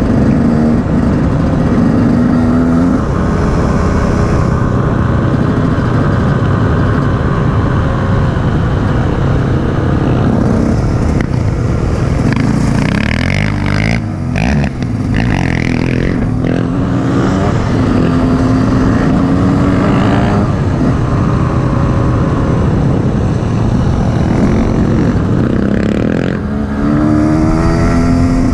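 KTM 150 EXC two-stroke enduro engine heard from the bike itself while riding a dirt track, its revs rising and falling several times through throttle and gear changes, with a brief easing off about halfway and a climb in revs near the end.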